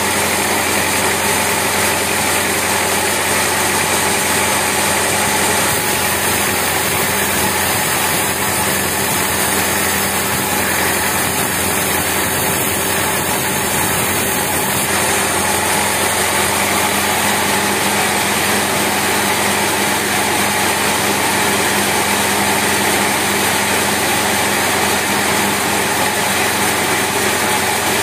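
Horizontal band sawmill running: a steady, unbroken mechanical drone with a low hum underneath.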